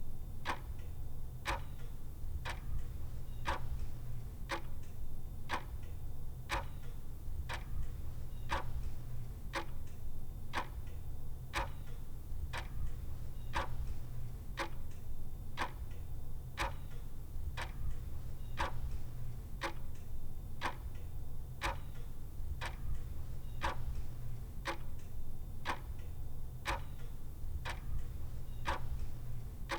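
Mechanical clock ticking evenly, about one tick a second, over a steady low hum.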